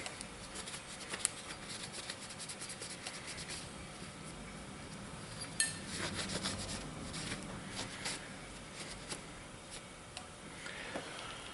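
Glock 30 pistol parts being wiped down by hand, a scratchy rubbing broken by small clicks and taps, with a sharper click about a second in and a louder one between 5 and 6 s.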